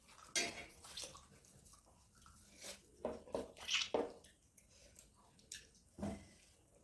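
Close-up eating sounds: chewing and wet smacking of food, heard as short irregular clicks and squelches.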